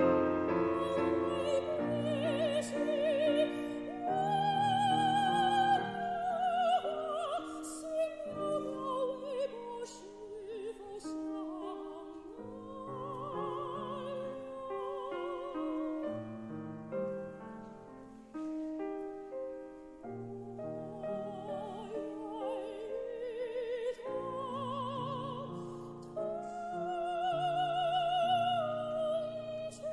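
Soprano singing a Chinese art song in classical style with a wide vibrato on held notes, accompanied by a grand piano. The voice is strongest a few seconds in, softens through the middle and swells again near the end.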